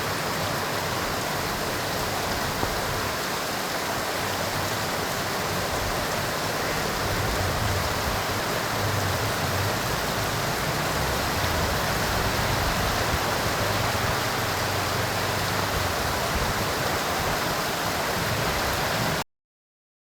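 Heavy monsoon rain falling steadily, a dense even hiss, with some low rumble in the middle; it cuts off abruptly about a second before the end.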